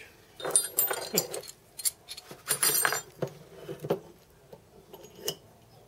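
Metal hand tools and small steel parts clinking and rattling as they are handled and moved about on a wooden workbench, in two main bursts of clinks with a few lighter clicks after.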